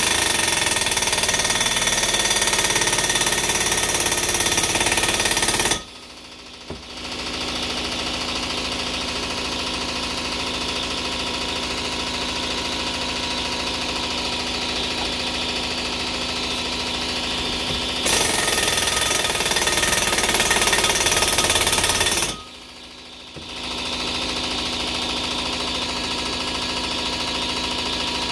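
Pneumatic impact wrench hammering in two long bursts, each a few seconds long, as it turns the spreader bolt of an exhaust pipe expander to stretch a steel pipe. Between and after the bursts an air compressor runs steadily, building pressure back up.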